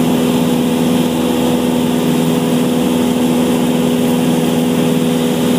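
Cessna's piston engine and propeller heard from inside the cabin, running with a steady, unchanging drone.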